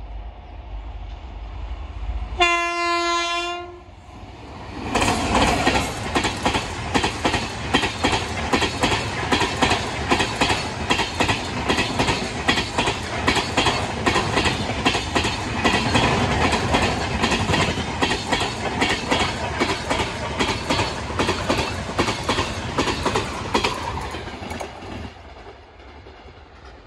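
Indian Railways express passenger train passing close by: the locomotive sounds one horn blast of about a second, about two and a half seconds in, over a rising rumble as it approaches. Then the red coaches run past for about twenty seconds with a loud, rapid, rhythmic clickety-clack of wheels over the rail joints, which fades near the end as the train draws away.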